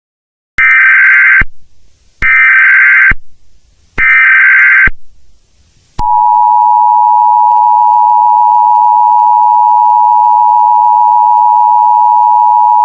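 Emergency Alert System broadcast: three short bursts of warbling SAME header data, then about six seconds in the steady two-tone EAS attention signal starts and holds. The tone marks the start of an emergency alert message.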